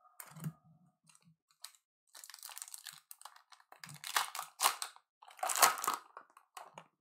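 A trading-card pack wrapper being torn open and crinkled by hand: a run of crackling rustles, loudest a little past the middle and again near the end.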